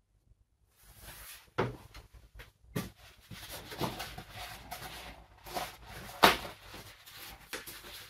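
Irregular knocks, clicks and clatter of small objects being handled, with rustling between them, starting about a second in; the sharpest knock comes about six seconds in.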